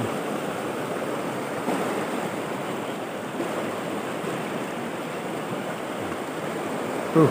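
River rapids rushing steadily over and around boulders.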